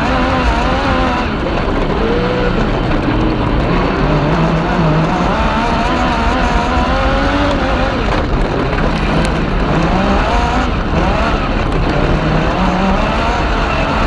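Yamaha MT-09 three-cylinder motorcycle engine of a kartcross racing car at full throttle, heard from the cockpit. Its pitch climbs through each gear and drops back at each upshift, several times over, under heavy wind and dirt-track noise.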